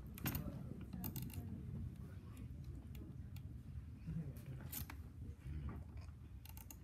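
Students tapping their feet on the floor: scattered, irregular light taps and clicks.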